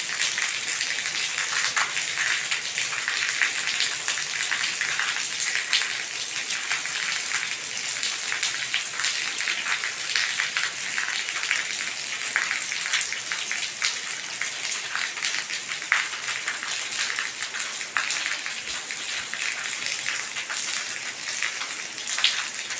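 Steady rain hissing and pattering on paved ground and rooftops, with many small drop ticks close by.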